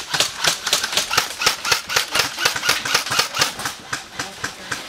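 Airsoft guns firing single shots, several a second at an uneven pace, as sharp cracking clicks.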